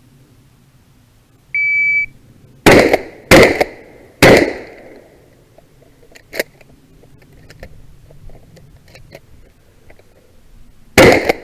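Shot-timer start beep, then a shotgun fires three times in under two seconds, each blast ringing out briefly. A few light clicks and knocks follow, and the shotgun fires again near the end.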